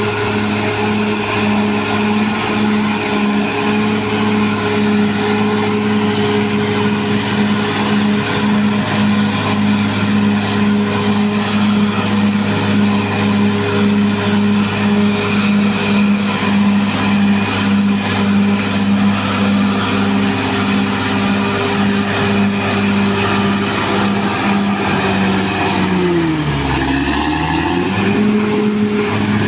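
Caterpillar D6R XL bulldozer's diesel engine running steadily with a pulsing beat. Near the end the engine note sags sharply and climbs back within a couple of seconds.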